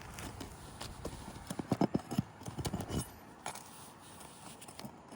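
Sharp knocks and clicks of nails being pried out from under roof shingles. They come in a quick cluster about two seconds in, with a few sparser ones after.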